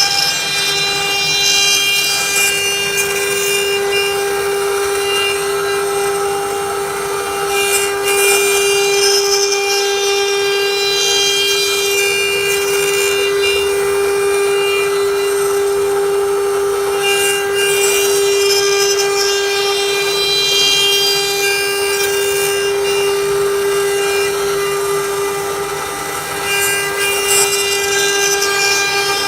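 CNC router spindle running with a steady high whine while its bit cuts a wooden chair leg. The cutting noise swells and fades several times as the tool works.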